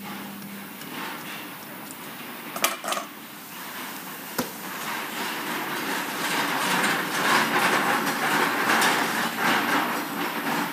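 Bench handling noises with the sewing machine stopped: its hum dies away in the first second. A couple of sharp knocks follow, then a longer, louder stretch of rustling clatter.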